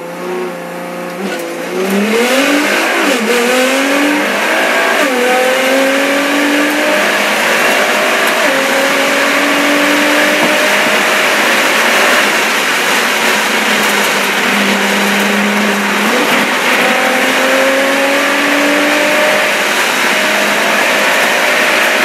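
Nissan GT-R race car's twin-turbo V6 launching from the start line and accelerating hard. Its pitch climbs and drops at each upshift, several upshifts coming quickly in the first few seconds, then it runs at high speed with steady wind and tyre noise.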